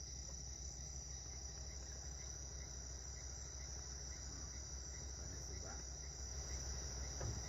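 Evening insect chorus: a steady high-pitched drone, with fainter short chirps repeating several times a second, over a low steady rumble.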